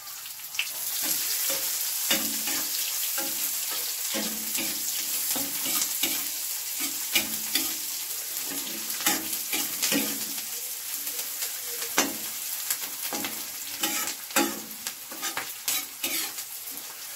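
Freshly added chopped onions sizzling in hot oil in a metal kadai, stirred with a slotted metal spatula that scrapes and clicks against the pan again and again.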